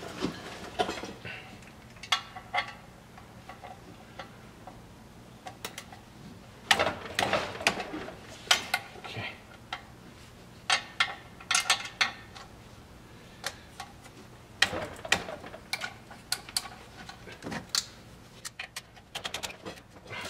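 Ratchet wrench clicking in irregular spurts as it loosens and backs out the clutch pressure-plate bolts, with light metal clinks between, and a fast run of clicks near the end.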